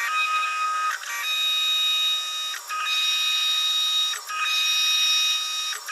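Denford Novaturn CNC lathe cutting steel: a steady high-pitched machine whine that dips briefly about every one and a half seconds.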